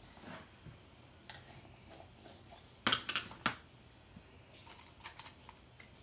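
Small plastic chalk paste jars and lids being handled and opened: light clicks and taps, with a brief cluster of sharp clicks about three seconds in.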